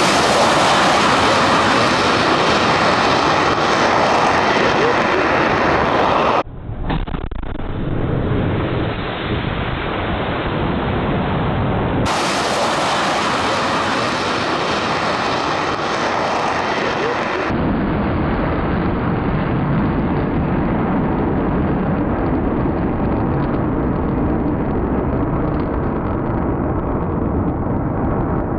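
Twin Snecma M88 turbofans of a Rafale Marine at full power during and after its catapult launch: a loud, steady jet roar. The roar changes abruptly in tone three times, about 6, 12 and 17 seconds in.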